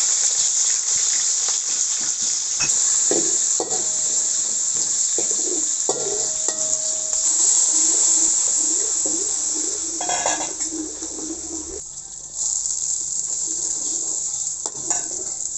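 Hot oil sizzling loudly in a steel wok as curry ingredients and liquid are poured in, with a metal spoon scraping and clinking against the wok as it is stirred. The sizzle dips for a moment a little past the middle, then picks up again.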